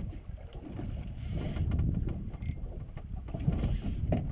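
Wind buffeting the microphone on a small open boat at sea: a steady low rumble, with a few light clicks.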